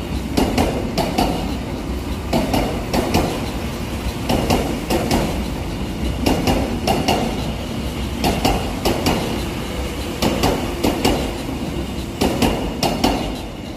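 Seoul Subway Line 1 resistor-controlled electric train passing, its wheels clacking over rail joints in quick pairs and groups, over a steady running rumble.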